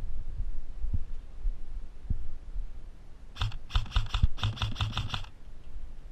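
Airsoft gun firing rapid full-auto bursts: a fast run of sharp mechanical clacks starting about three and a half seconds in and lasting about two seconds, broken by a couple of brief pauses. Low rumble of handling and wind on the microphone underneath.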